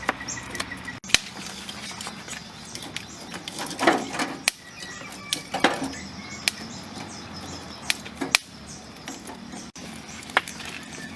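Lump charcoal burning in a grill, crackling with irregular sharp pops as it catches. Birds chirp faintly in the background.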